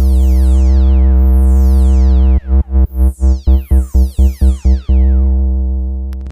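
Electronic DJ speaker-check music: a loud, steady deep humming bass drone with falling synth sweeps over it, chopped into about ten quick stutters in the middle before it fades near the end.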